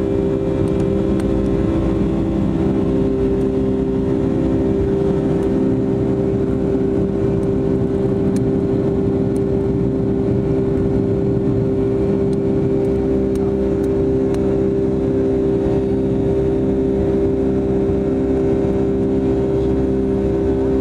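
Airliner's turbine jet engines at takeoff thrust, heard from a cabin seat beside the engines: a loud, steady roar with a strong droning hum through the takeoff roll and climb-out.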